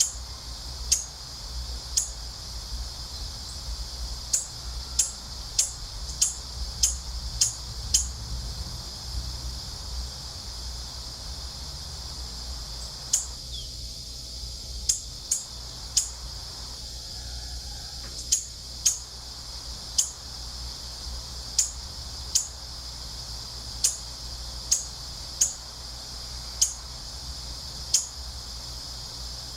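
Wind rumbling low under a steady high-pitched drone, with short sharp bird chirps every second or so, singly and in quick runs, that lull for a few seconds near the middle.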